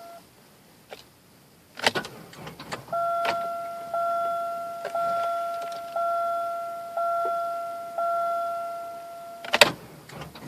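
Buick Park Avenue's interior warning chime dinging about once a second, with a few clicks as the car door is worked and a sharp loud bang near the end.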